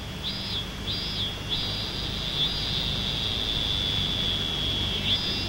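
High-pitched chirping call: two short notes, then one long drawn-out note of about three seconds, then another short note near the end, over a low steady hum.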